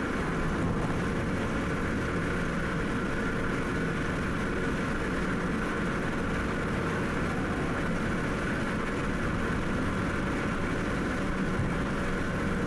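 Steady road and engine noise heard from inside a car cruising at highway speed, with tyres on the pavement.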